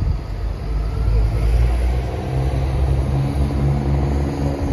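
Diesel multiple unit's underfloor engines running with a low rumble, a steadier, higher drone building from about two seconds in as the engines rev.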